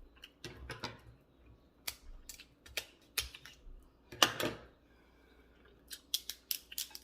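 Irregular sharp clicks and cracks of crab shell being handled and broken while eating. A louder crackling cluster comes about four seconds in, and a quick run of clicks near the end.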